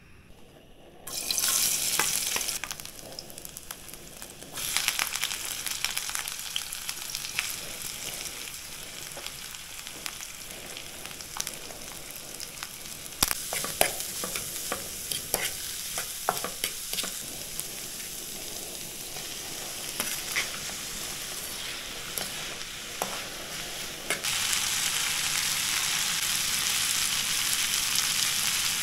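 Hot oil sizzling in a pan, starting suddenly about a second in, with a utensil clicking and scraping against the pan as it is stirred. The sizzle steps up louder near the end.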